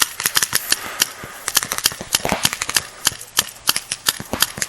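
Paintball guns firing, a rapid, irregular string of sharp pops, several shots a second.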